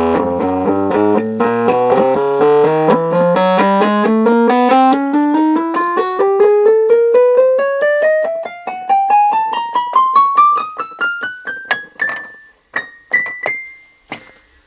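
Hohner Cembalet, an electric keyboard with plucked reeds, played in a steady run of notes in octaves climbing from the bass to the top of the keyboard, then a few separate high notes near the end. It is a check that the freshly adjusted pluckers and dampers now sound evenly across the keyboard.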